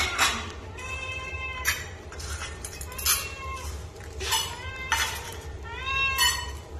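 Cats meowing, about three long, wavering meows, amid sharp clinks of metal food bowls at feeding time.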